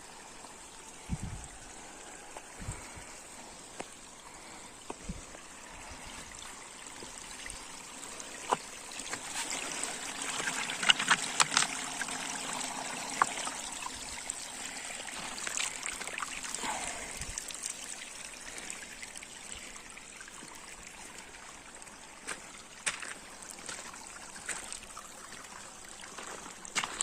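Water trickling and splashing over rocks in a stream, swelling louder for several seconds in the middle, with scattered sharp ticks and a few dull knocks.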